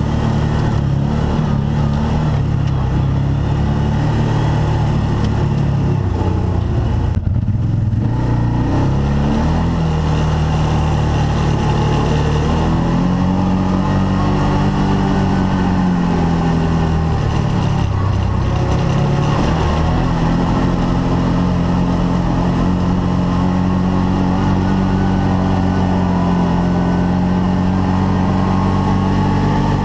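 Arctic Cat Wildcat side-by-side engine running on a trail ride, its pitch rising and falling as the throttle is worked, with a short lift off the throttle about seven seconds in.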